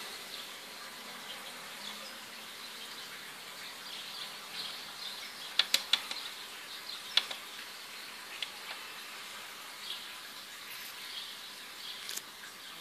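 Front-panel buttons of a Densen Beat B-400 CD player clicking as they are pressed: a quick run of three or four clicks about six seconds in, another a second later, and one more near the end. Under them runs a faint steady hiss.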